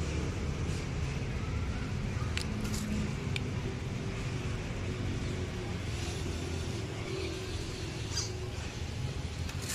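Steady low outdoor rumble, with a few faint clicks about two and a half, three and a half and eight seconds in.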